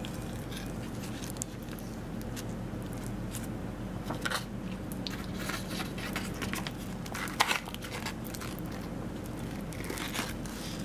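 Bamboo leaf wrapping of a zongzi (sticky-rice dumpling) being peeled back and handled, crinkling and rustling in short bursts, with a few sharper crackles midway. A steady low hum runs underneath.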